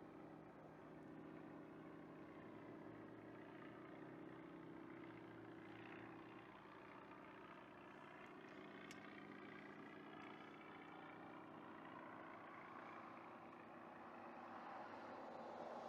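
Light piston-engine airplane droning faintly and steadily, growing louder near the end.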